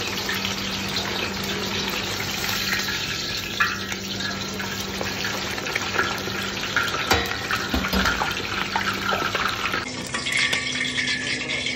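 Battered calamari deep-frying in a pot of hot oil: steady sizzling and crackling of the bubbling oil, with a few sharp knocks partway through.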